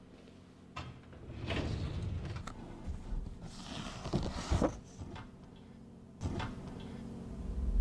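Metal filing-cabinet drawer sliding and knocking, with a click about a second in and a few knocks later, mixed with paper and photo prints being handled.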